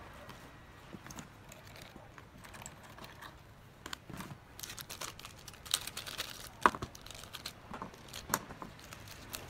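Handling noise of small plastic drone parts: light clicks and taps as propeller guards and pieces are picked up and set down on cardboard, with the crinkling of a small plastic parts bag and one sharper click about two-thirds of the way through.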